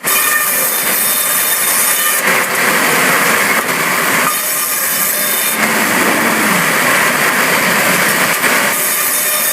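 Sawmill saw cutting through timber, a loud continuous rasping noise whose tone shifts every couple of seconds as the cut goes on.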